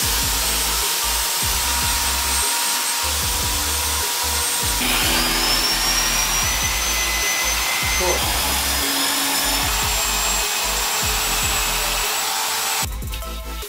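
A handheld power tool runs steadily on the steel stool, with a whine that rises about five seconds in and cuts out abruptly about three seconds later. Background music plays underneath.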